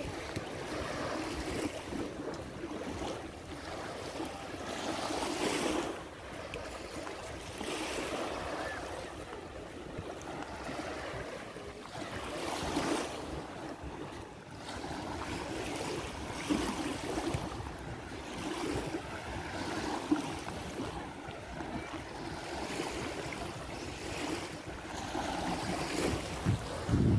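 Small waves of the Adriatic Sea lapping and washing up on a sandy shore, the wash swelling and fading every two to four seconds.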